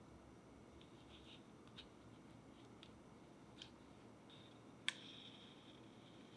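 Faint clicks and taps of a small metal offset spatula against the acetate-lined cake ring and the jelly layer, a few soft ones and one sharper click about five seconds in.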